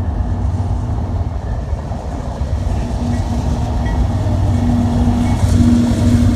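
Diesel locomotives at the head of an empty coal train approaching, a steady low engine rumble with a droning tone that grows louder toward the end.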